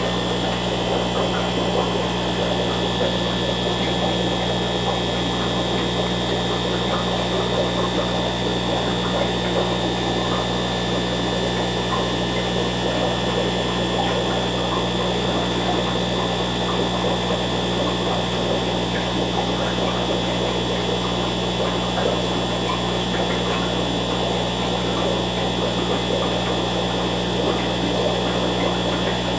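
Steady electrical hum with a busy, crackly bubbling in the lower middle range: aquarium air pumps running and air-driven sponge filters bubbling in the tank.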